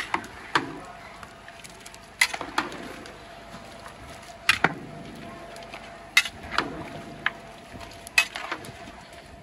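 Sharp knocks in pairs, one pair about every two seconds, over a faint steady hum.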